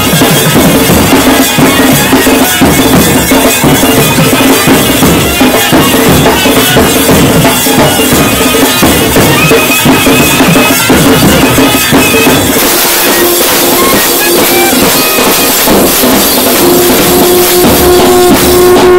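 Temple procession music: drums beating under a steady droning pitch. About twelve seconds in the sound changes and a new held note comes in.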